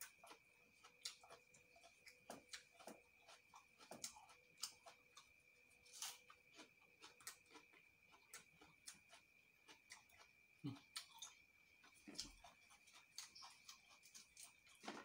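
Faint crisp chewing of fresh lettuce leaves: quiet, irregular clicks and crunches several times a second, over a faint steady high-pitched tone.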